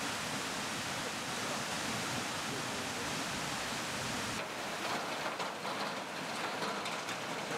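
Steady rush of muddy floodwater pouring through the gates of a weir. About four seconds in it changes abruptly to the more uneven rush of a swollen, fast-flowing river.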